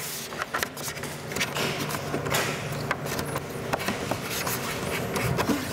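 Vinyl wrap film rustling and rubbing as it is handled and tacked down by hand onto a plastic grille trim panel, with many small scratchy rubs over a steady low hum.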